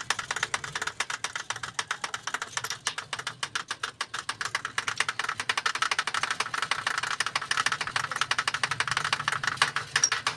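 Metalworking on a steel air tank in a workshop: a continuous run of rapid clicking and rattling over a low motor hum.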